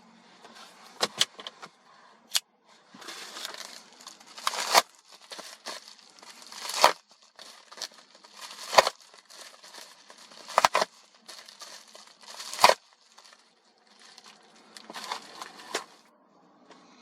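Shipping package being opened by hand: plastic or paper wrapping crinkling and tearing, with sharp rips about every two seconds.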